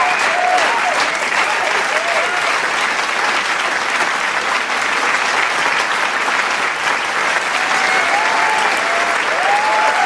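Large studio crowd applauding: dense, steady clapping, with scattered cheers and whoops in the first second and again near the end.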